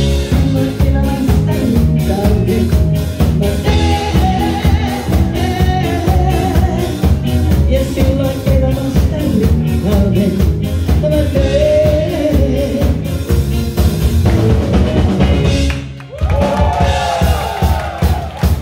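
Live pop-rock band (drum kit, bass, electric guitar and keyboards) playing with a steady drum beat while a woman sings lead. About sixteen seconds in the beat stops briefly and sustained, bending notes follow.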